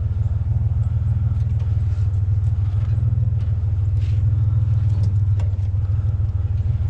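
Vehicle engine idling steadily with a low, even rumble, with a few faint knocks partway through.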